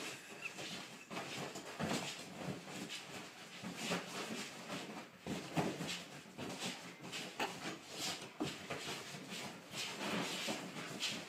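A small dog scrambling about on a bed: continuous irregular rustling of pillows and duvet and soft thumps of its paws on the mattress.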